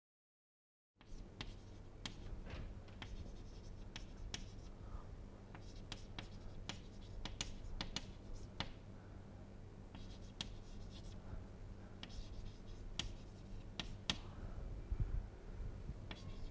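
Chalk writing on a blackboard: many quick taps and short scratches as words are chalked, starting about a second in, over a low steady hum.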